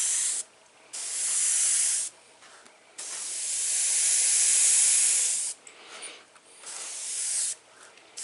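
Airbrush hissing in repeated bursts of air and paint, each about one to two seconds long with short pauses between, as lines of paint are sprayed and blown out.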